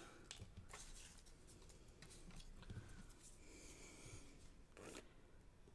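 Near silence, with a few faint taps and a soft rustle of paper pieces being handled.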